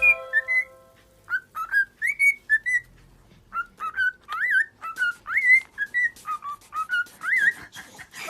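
Pet bird whistling a rapid series of short notes that swoop up and down, with clicks between them.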